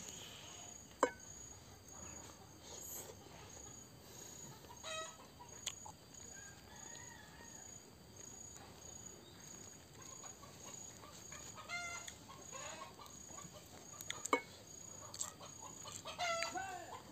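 Chickens clucking now and then in the background, over a faint high chirp that repeats about twice a second. A few sharp clicks, the loudest about a second in.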